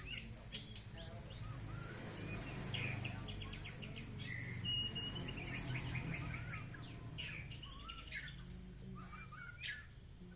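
White-rumped shama (murai batu) singing a varied song of chirps, whistled notes and quick rattling trills, including one held whistle around the middle, over a low steady background hum.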